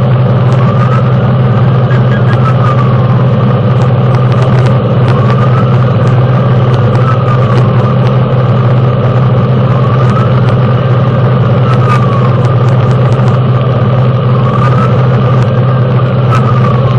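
Fire engine running at road speed, its engine a loud steady drone inside the cab, with its siren in a slow wail rising and falling about every four to five seconds.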